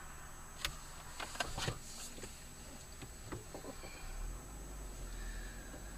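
Faint low hum of a car driving, heard from inside the cabin, growing a little about four seconds in, with a few light clicks and knocks in the first few seconds.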